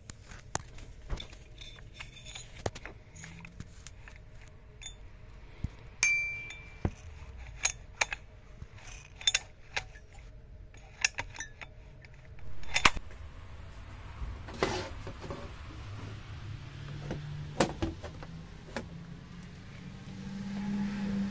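Scattered metallic clinks and taps of tools and parts being handled on a chainsaw, one clink about six seconds in ringing briefly. A low hum swells near the end.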